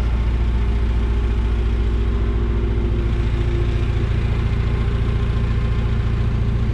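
Engine idling steadily, with an even low throb.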